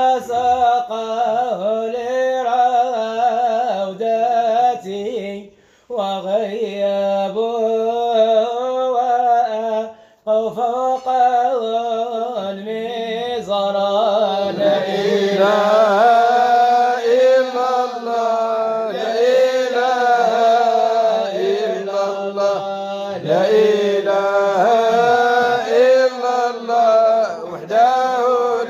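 An Arabic devotional madih sung as a solo chant, the voice drawing out long wavering melismatic phrases over a steady low drone. The sound cuts out briefly twice, about five and ten seconds in.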